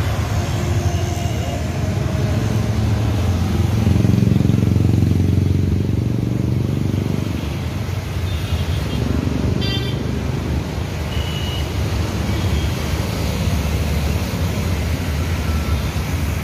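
Road traffic passing close by: a steady rumble of vehicles that swells as one goes past about four to six seconds in. A short vehicle horn beep sounds near the middle.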